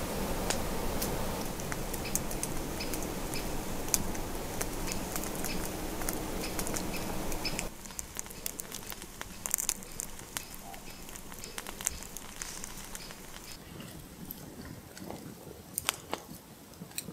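Wood fire crackling with sharp pops over a steady rushing noise. The rushing noise drops away suddenly about eight seconds in, leaving quieter, scattered crackles.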